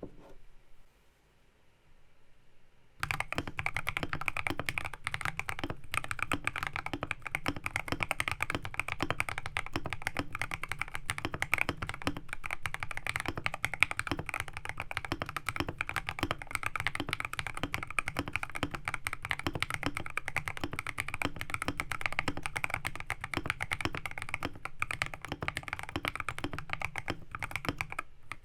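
Fast, continuous typing on a custom GK64 mechanical keyboard with a bamboo case, brass plate, lubed JWK Matcha 68g switches, XDA keycaps and PE foam plus tape mod, starting about three seconds in.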